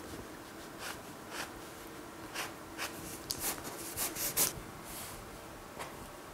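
Paint marker scratching across a canvas in short, irregular strokes, most frequent and loudest a little past the middle.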